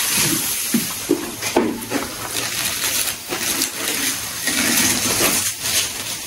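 Plastic packaging crinkling and a cardboard box rustling while an air conditioner's indoor unit is unpacked, in irregular handling noise with many short sharp crackles.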